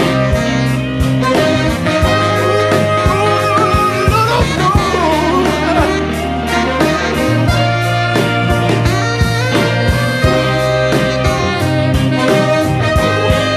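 Music: an instrumental stretch of a song, with a steady drum beat, a bass line and a wavering lead melody.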